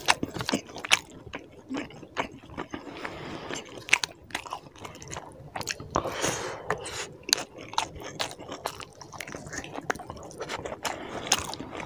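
Close-miked wet chewing and lip smacking of curry-soaked rice and chicken eaten by hand, with many short clicks. At the start there is squishing of fingers mixing rice into curry, and about six seconds in a louder stretch as a handful goes into the mouth.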